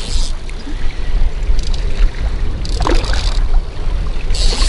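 Small offshore fishing boat on choppy open water: a constant heavy low rumble of wind buffeting the microphone, broken by four irregular bursts of hissing water splashing against the hull.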